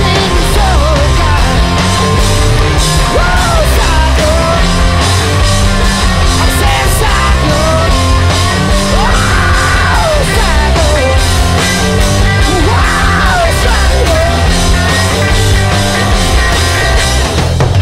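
Loud rock music with a singing voice over bass and drums.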